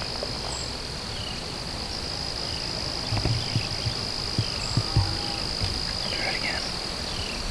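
A steady, high-pitched insect trill, with short falling bird chirps scattered over it and a few soft low thumps around the middle.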